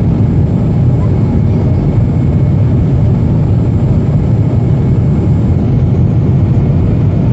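Steady low rumble of a Boeing 737-400 in flight, engine and airflow noise heard from inside the cabin, unchanging throughout.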